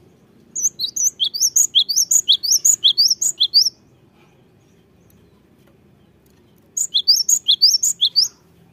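Cinereous tit in full song: two bursts of rapid, high, repeated chirping notes, about six a second. The first burst lasts about three seconds; the second is shorter, near the end.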